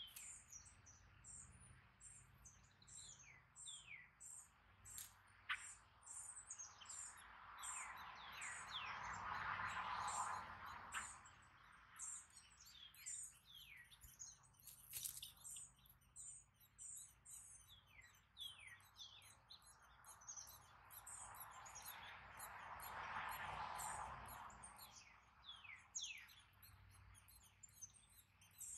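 Faint, rapid, thin high chirps, each sliding down in pitch, from gray catbird nestlings begging at the nest as a parent feeds them. Twice a soft rushing noise swells up and fades, about eight seconds in and again past twenty seconds.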